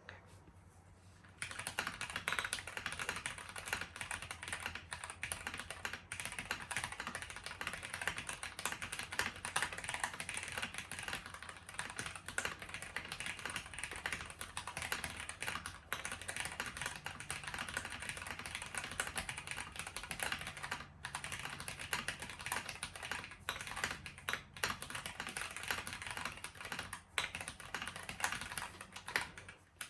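Fast continuous typing on a KBDFans Tiger Lite gasket-mount mechanical keyboard with unlubed Gateron Milky Yellow linear switches and lubed stock stabilizers, starting about a second and a half in, with a few brief pauses near the end.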